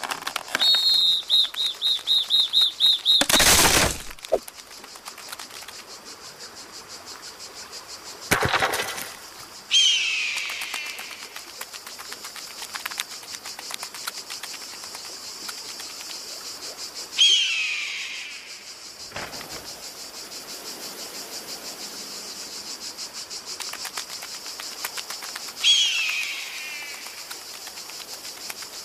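Cartoon nature sound design: a steady high insect chirring, with a bird's short falling call heard three times about eight seconds apart. In the first few seconds there is a fast squeaky chattering, cut off by a loud rushing sound, and a second rushing sound follows a few seconds later.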